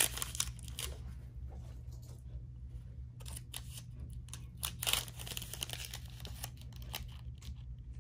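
Wrapper of a Panini Revolution basketball trading card pack being torn open by hand: crinkling and tearing in short irregular bursts, loudest right at the start and again about five seconds in, over a steady low hum.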